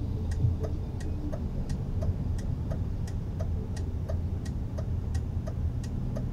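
A car's turn-signal indicator clicking steadily, about three ticks a second, over the low hum of the engine and tyres inside the cabin.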